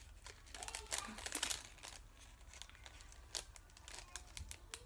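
Thin clear plastic packaging crinkling in the hands as it is worked open: irregular crackles, busiest in the first two seconds, then sparser.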